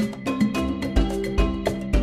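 Background music with a steady beat, pitched percussive notes over a bass line.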